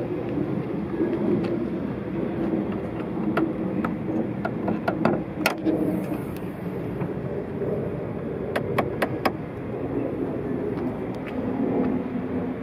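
Sharp clicks and clunks of a 2022 Kia Soul's hood being unlatched, raised and propped open, in two clusters a few seconds apart, over steady outdoor background noise.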